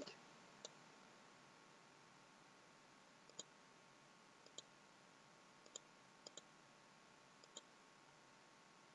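Faint computer-mouse button clicks, about seven scattered ones, including a quick double click a little past the middle, over near silence.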